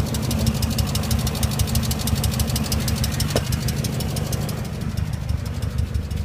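BMW E39 M5's S62 V8 engine idling with a fast, even knock riding over the engine note, which the owner suspects may be rod knock.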